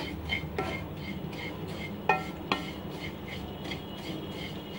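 Wooden spatula stirring and scraping vermicelli as it roasts in ghee in a nonstick pan, in a steady rhythm of about three scrapes a second. Two sharper knocks against the pan come about two seconds in.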